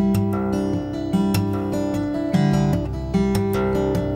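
Background music: strummed acoustic guitar chords at a steady pace.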